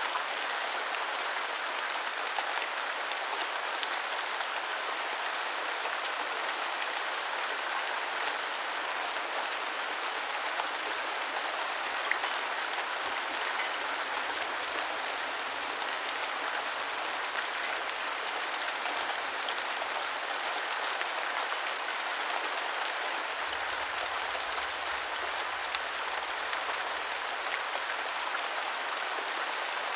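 Steady rain falling on a surface, a constant hiss with scattered individual drop ticks.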